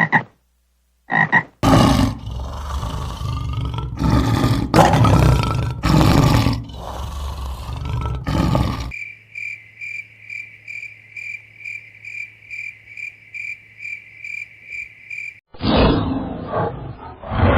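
A run of different animal calls: a couple of short croaks, then several seconds of loud, rough roaring calls, then a high chirp repeating about twice a second, and another loud call near the end.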